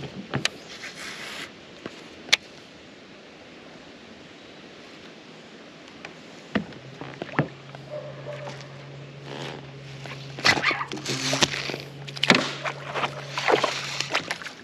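A low, steady electric hum, a boat's trolling motor, starts about six and a half seconds in. From about ten seconds in, a series of loud splashes follows as a hooked bass thrashes at the surface, being pulled out of the grass.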